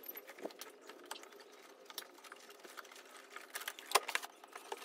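Light, scattered clicks and knocks of a Harley-Davidson Road Glide's hard saddlebag being handled as it is taken off, with a sharper knock about four seconds in.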